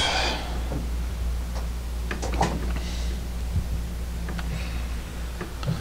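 A few faint, scattered clicks and light knocks as the parts of a boombox being taken apart are handled, over a steady low hum.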